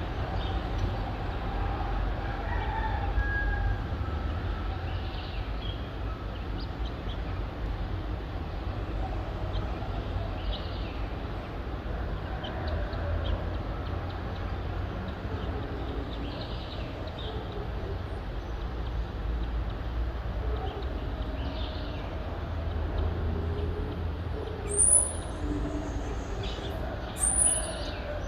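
Dawn town soundscape: a steady low rumble of distant city traffic with roosters crowing far off. Near the end come two short, sharp, high-pitched bird calls, the loudest sounds.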